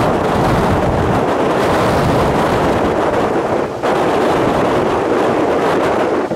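Wind blowing across the microphone: a loud, steady rushing rumble that eases briefly a little past halfway.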